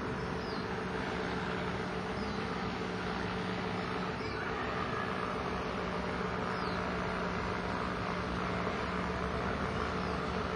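Steady outdoor background noise with a constant low hum, broken now and then by a few short, high, falling chirps.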